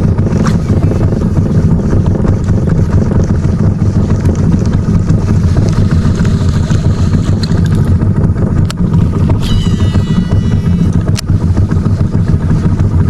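A steady engine drone runs throughout, with a brief high-pitched tone about nine and a half seconds in.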